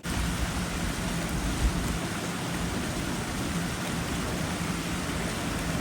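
Steady rain falling, a dense even hiss that starts abruptly, with a faint low steady hum underneath.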